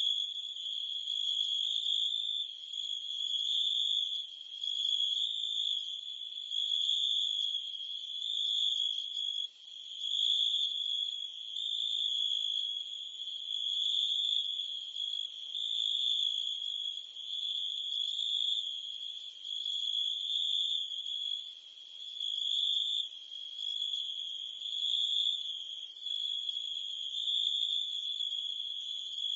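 Chorus of crickets and cicadas: a continuous high-pitched trill that swells and fades every second or two.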